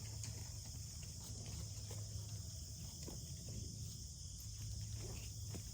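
Quiet outdoor ambience: a steady high insect-like hiss over a low hum, with a few faint knocks.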